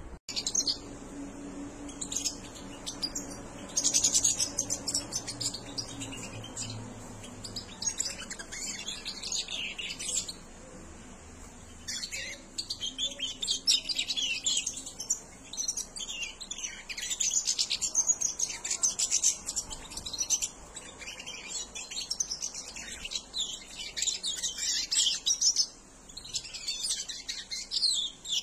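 Juvenile European goldfinches twittering: rapid, high chirps in dense clusters, with a short lull about ten seconds in.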